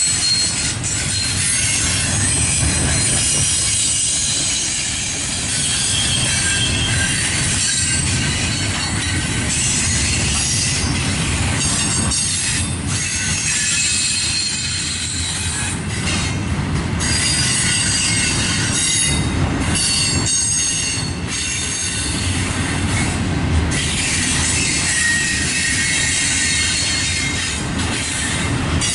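Double-stack intermodal container well cars rolling past: a steady low rumble of steel wheels on rail, with high-pitched wheel squeal coming and going.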